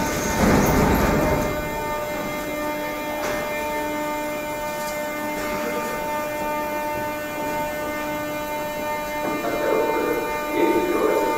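A Moscow metro train of the 81-717 type standing at the platform with its doors open: a steady electric hum with several held tones. A louder rush of noise comes in the first second and a half.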